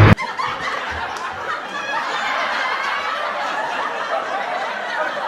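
Music cuts off abruptly at the very start, followed by people laughing and chattering in the background.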